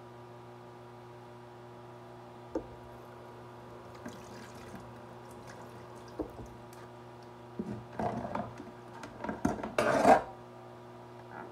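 Light taps of a metal ladle, then, about eight seconds in, a couple of seconds of water sloshing and splashing with clinks of kitchenware, loudest near the end. A steady low hum runs underneath.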